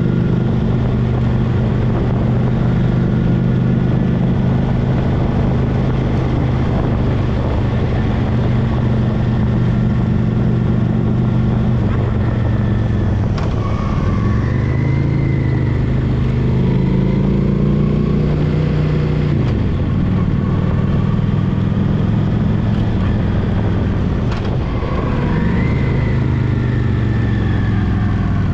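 Honda Shadow Spirit VT750's V-twin engine running steadily under way on a gravel road, over a constant hiss of tyres and wind. The engine pitch dips and climbs again twice, about halfway through and near the end.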